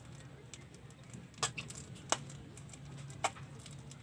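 A few short, sharp crackles of plastic fish bags being handled, about once a second, over a low steady hum.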